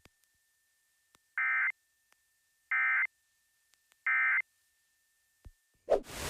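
Emergency Alert System end-of-message code: three short, identical bursts of warbling digital data tones about a second apart, marking the close of the alert. Near the end a sharp click cuts in, followed by steady radio static hiss.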